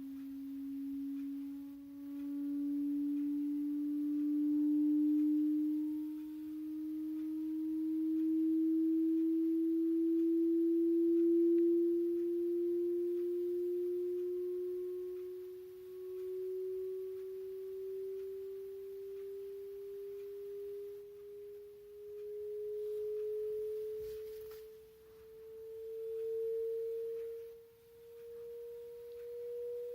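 Pure sine test tone of a hearing-test frequency sweep, rising slowly and steadily in pitch from a low hum toward a mid tone. Its loudness swells and dips.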